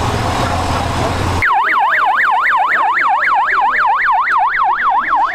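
Street noise with a low steady hum for about a second and a half, then a loud siren in a fast up-and-down yelp, about three sweeps a second.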